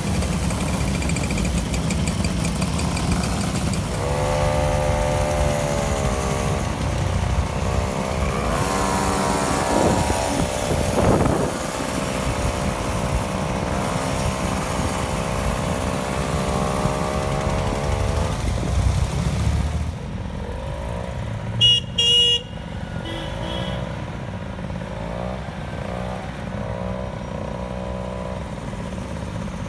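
A group of two-stroke mopeds running and revving, their engine notes rising and falling as they ride off together. A horn toots twice in quick succession about two-thirds of the way through, and more engines pass afterwards.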